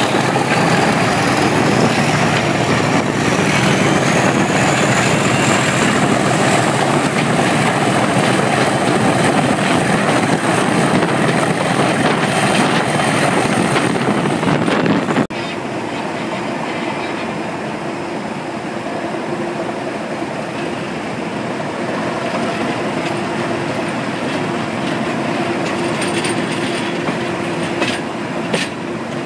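Class 37 diesel locomotive's English Electric V12 engine working hard, heard from beside the cab, with a turbocharger whine rising in pitch over the first several seconds. About halfway through the sound drops suddenly to a quieter steady run, with a few sharp clicks from the wheels near the end.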